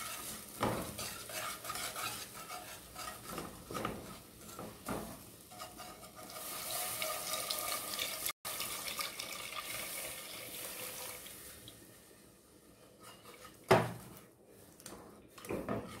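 A wire whisk stirs, scrapes and clinks against the sides of an aluminium saucepan as milk is poured bit by bit into a butter-and-flour roux for bechamel sauce. The milk splashes in around the middle, and there is a sharper clink of metal on the pan near the end.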